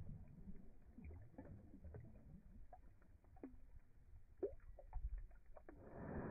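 Australian shepherd blowing bubbles into shallow water with its nose, slowed down: faint low gurgling with scattered bubble pops and drips. A louder rush of noise starts near the end.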